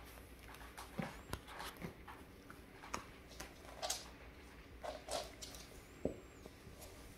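Faint, irregular scuffs, taps and rustles of a cat and a puppy play-fighting: paws and claws brushing a wooden floor and a fabric dog bed, with about a dozen short sharp touches scattered through.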